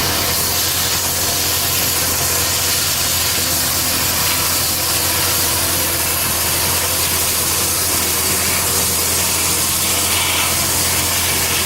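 Power saw machinery for cutting wood running steadily: a low hum under a constant hiss.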